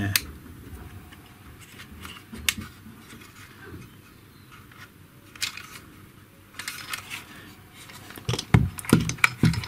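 Handling clicks and scrapes from the plastic hinge and housing of a GHD hair straightener being worked by hand while he tries to free the pivot spring. A few sharp clicks, a brief scraping about two-thirds through, and a busier run of clicks and knocks near the end as the straightener is turned over.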